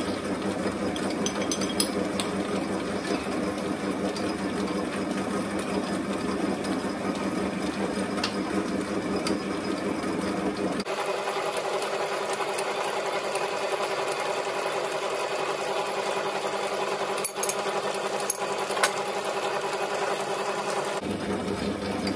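South Bend lathe running steadily, its chuck spinning while a long drill bit is fed into the workpiece from the tailstock: a continuous mechanical hum with a few faint ticks. About eleven seconds in the deepest part of the hum drops away abruptly, and it returns near the end.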